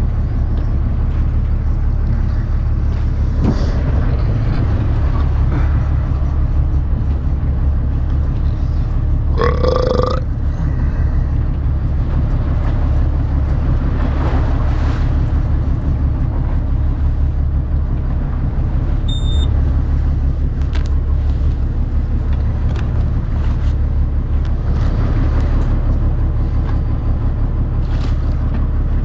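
Fishing boat's engine running with a steady low drone, wind on the microphone and water around the hull. About ten seconds in a short rasping sound cuts through, and a brief high beep sounds near the middle.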